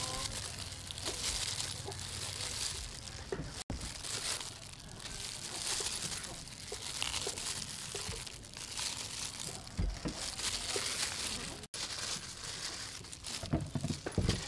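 Green bananas being peeled with a knife: the blade scraping and slicing through the thick peel and the peel torn away by hand, with repeated crinkly tearing sounds. A few dull knocks near the end.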